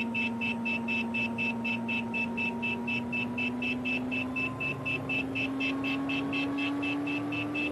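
Helicopter engine and rotor heard from inside the cabin as it lifts off into a hover: a fast, even blade beat of about five a second over a steady whine that rises slowly in pitch.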